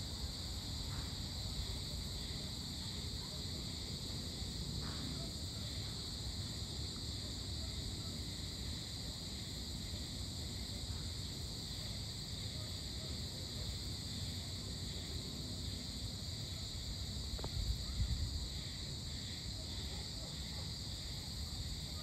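Evening insect chorus: a steady, unbroken high chirring in several even bands, over a low continuous rumble. The rumble swells briefly about three-quarters of the way through.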